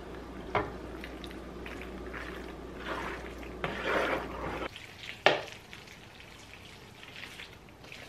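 A wooden spoon stirring elbow macaroni through thick cheese sauce in a pot, with wet swishing and scraping and a sharp knock about half a second in. Partway through it turns to quieter mixing in a glass bowl, with one more knock.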